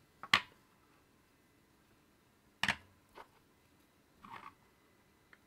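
Small metal fidget sliders and spinners being handled and set down on a wooden tabletop: a handful of sharp clicks and taps, the loudest just after the start and again near the middle, with a soft scrape about four seconds in.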